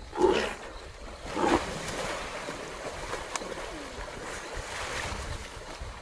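Water splashing as an antelope struggles in a crocodile's grip in a river, with two louder splashes, one just after the start and one about a second and a half in. Low wind rumble on the microphone underneath.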